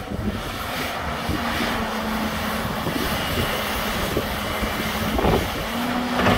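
Volvo crawler excavator running under load, its diesel engine and hydraulics droning with a steady held tone as the loaded bucket is lifted and swung. A couple of short knocks come near the end.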